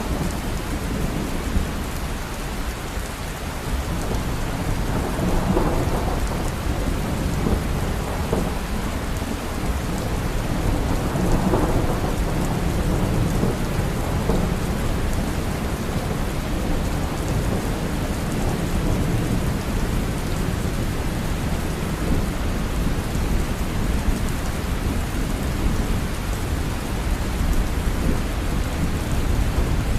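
Steady heavy rain falling, a dense even hiss with a deep low rumble underneath that swells twice, about five and eleven seconds in.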